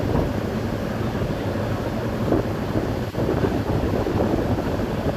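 Wind buffeting the microphone over the steady low hum of a boat's engine, with water washing alongside the hull.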